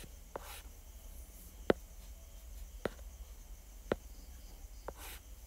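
Sharp clicks of a stylus tip tapping on a tablet's glass screen while lines are drawn, five of them about a second apart, the loudest a little under two seconds in.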